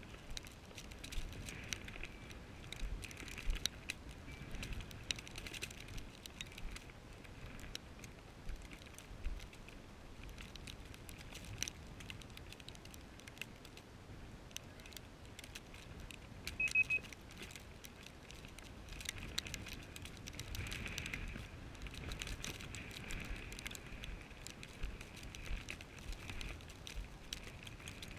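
Hunter walking through snow-dusted dry grass and brush: rustling and crunching with many small clicks, and one short high beep about seventeen seconds in.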